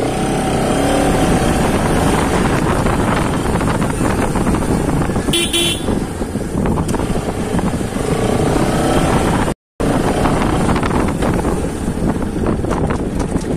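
Bajaj Pulsar RS 200's single-cylinder engine running on the move, with a constant rush of wind and road noise over it. A vehicle horn toots briefly about five seconds in, and the sound cuts out for a split second near ten seconds in.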